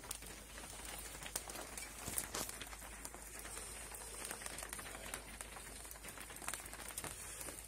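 Light rain pattering and dripping, with a few scattered sharp taps.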